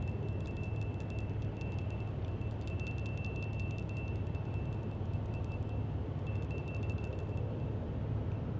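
A high, steady insect trill over a low, steady rumble. The trill breaks off briefly a few times and stops near the end.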